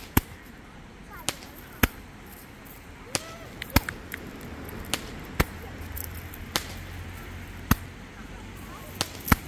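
Small consumer fireworks going off, launching and bursting overhead. About a dozen sharp pops come at uneven intervals, roughly one every half second to second and a half.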